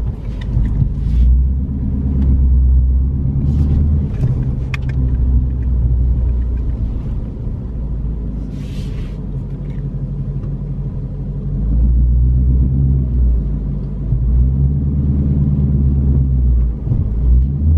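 Ford Shelby GT350's 5.2-litre flat-plane-crank V8 running as the car is driven. The engine note climbs and drops several times with throttle and gear changes, and is quieter for a few seconds in the middle.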